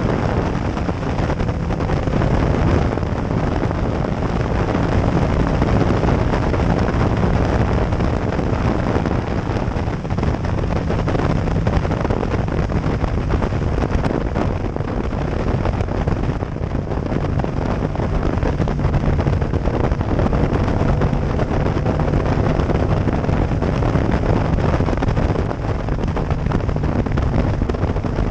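Yamaha MT-07's 689 cc parallel-twin engine running steadily at high speed on the road, heard from the rider's seat and largely buried under heavy wind buffeting on the microphone.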